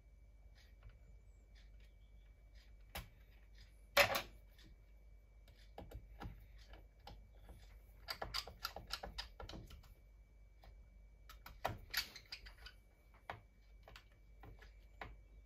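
Small clicks and taps of a hard drive being fitted into the open MacBook Pro's case with a small screwdriver. The loudest knock comes about four seconds in, with quick runs of clicks around eight and twelve seconds.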